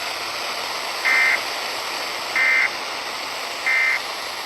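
Emergency Alert System end-of-message signal: three short bursts of warbling SAME data tones, about 1.3 s apart, marking the end of the alert. They play over a steady FM radio static hiss.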